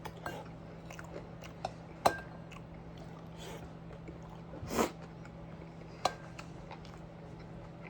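Quiet eating sounds: soft chewing with a few sharp clinks of a utensil against a dish, the clearest about two seconds in and again about six seconds in, with one short louder smack near the middle, over a steady low hum.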